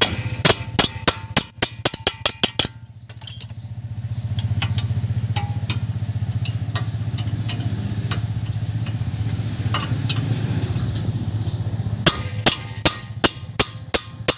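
Hand tools clicking and clinking on metal while a brake assembly is being unbolted, in a quick burst at the start and another near the end, with scattered single clicks between. A steady low hum runs underneath.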